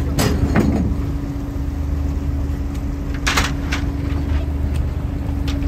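A fishing boat's engine running steadily with an even hum, while a fine-mesh net is hauled aboard by hand, giving a few short swishing rustles, the longest about three seconds in.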